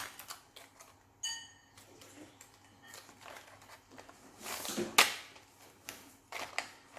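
Small hard plastic toy pieces clicking and knocking as they are handled, with a short squeaky high tone about a second in. There is a rustle and a sharp click near the end.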